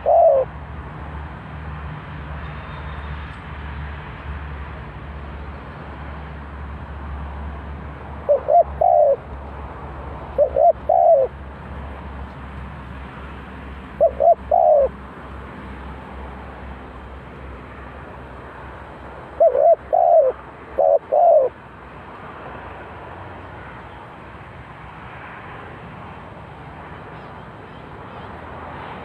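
Spotted dove cooing: four short phrases of two or three coos, several seconds apart, over steady background hiss and a low hum.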